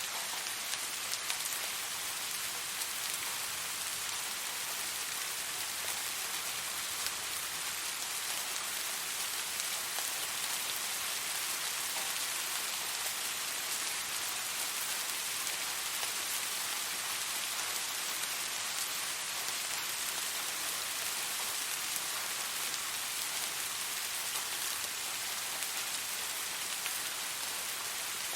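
Steady rain falling on a surface: an even hiss of many raindrops with fine individual drop ticks, unchanging throughout.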